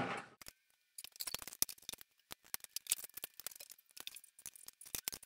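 Scattered light clicks and clinks of small metal parts and tools being handled, faint and irregular, several a second.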